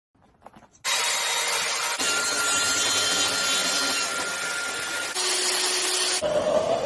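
Power tools running loudly, starting abruptly about a second in and changing character suddenly several times.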